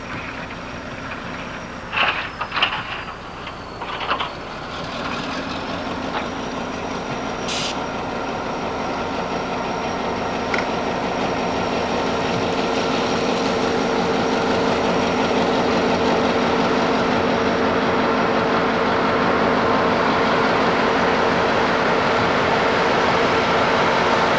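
Railroad snowplow pushed by diesel locomotives approaching and passing close by. The locomotives' engines drone steadily and grow louder, and there is the rush of snow being thrown off the plow. A few sharp knocks come about two and four seconds in.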